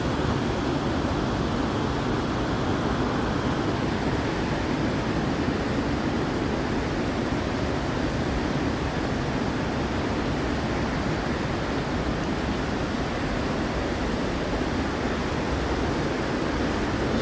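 Steady road and engine noise of a moving car heard from inside the cabin: an even, unbroken rumble.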